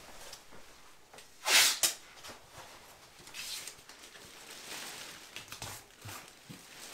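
Thin clear plastic bag rustling and crinkling as it is handled and pressed up around a ceiling template, with a short, louder burst about a second and a half in.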